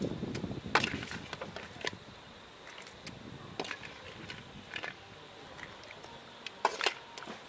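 A metal slotted skimmer scraping and clacking against a steel wok as fried crabs are scooped out, with the crab shells clattering. There are scattered sharp knocks: one loud one about a second in and two close together near the end.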